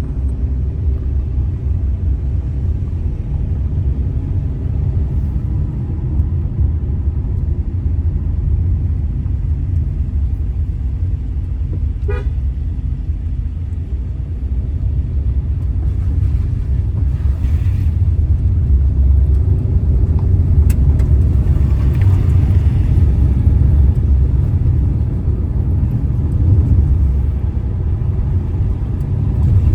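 Car driving on a mountain road: a steady low rumble of engine and road noise, with a brief, sharp pitched chirp about twelve seconds in.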